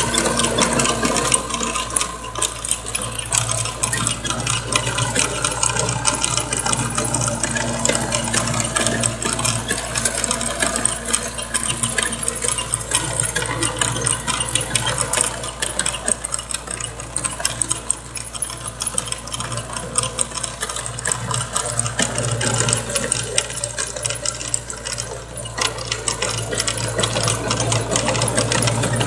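Kubota MX5000 tractor's diesel engine running steadily while its rear rotary tiller churns the soil, a dense metallic rattling and clicking over the engine's low hum.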